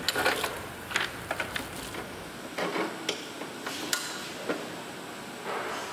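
Irregular clicks and light metallic knocks as parts and tools are handled against a steel motorcycle frame during assembly, with a cluster of sharper knocks at the start and a few single clicks after.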